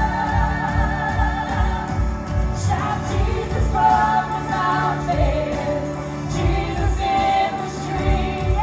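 Live worship music: a band with a steady beat of about two pulses a second under sustained, wavering sung notes.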